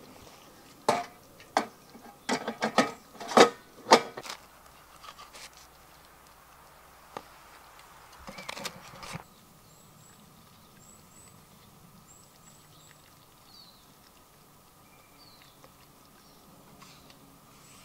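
A quick run of sharp knocks and clatters in the first few seconds, then a bread knife sawing through a crusty loaf on a wooden board for about a second. Faint high bird chirps come through afterwards.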